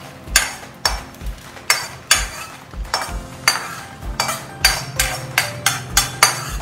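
A spatula scraping and knocking against a kadai, about two strokes a second, as roasted dry red chillies, urad dal and coriander seeds are scooped out of the pan onto a plate.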